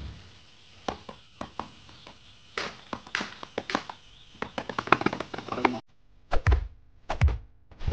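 Plastic clogs worn on the hands slapping and tapping against gloved hands in a rapid, uneven series of strikes. The strikes cut off suddenly, and two heavy low thuds follow.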